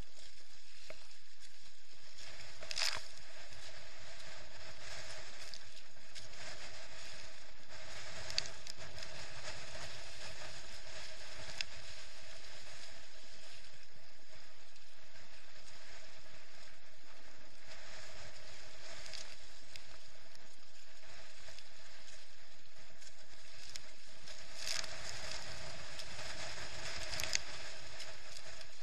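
Wind and water rushing steadily past a Hobie Adventure Island sailing kayak running through choppy water, over a steady hum. Chop slaps sharply against the hull several times, most strongly about 3 s in and twice near the end.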